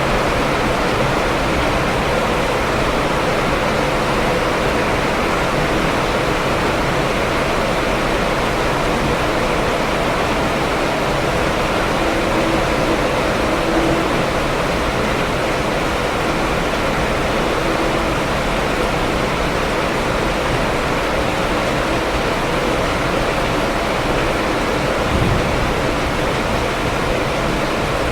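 Steady rain falling, an even, unbroken hiss. There is one soft low thump about three seconds before the end.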